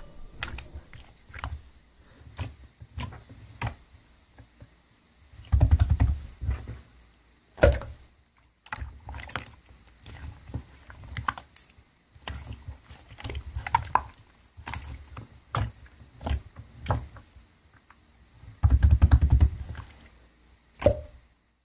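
Handling noise near the microphone: scattered clicks and knocks with low rumbling thuds, a louder rumbling stretch about six seconds in and another near the end.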